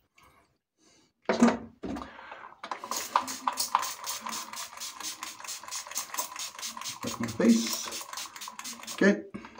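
Parker Variant safety razor making a fast, even run of short clicking scrapes, about four or five a second, for several seconds.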